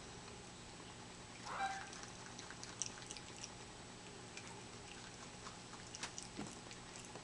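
Ring-tailed lemur chewing willow leaves, with faint scattered crunching clicks and leaf rustling. A brief louder rustle comes about one and a half seconds in, and a flurry of clicks with a soft thud near the end.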